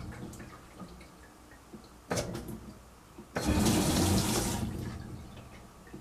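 Fisher & Paykel EcoSmart washer filling in pulses: the water valves switch on and off and water rushes into the tub in separate surges. One surge dies away in the first second, a short one comes about two seconds in, and a longer one starts about three and a half seconds in and fades. This erratic pulsing fill is caused by a failed balance switch.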